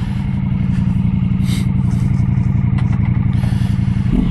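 Ducati Multistrada Pikes Peak motorcycle engine idling steadily with an even low beat, its note rising near the end as the bike is about to pull away. A few brief clicks and a short rustle come over it about halfway through.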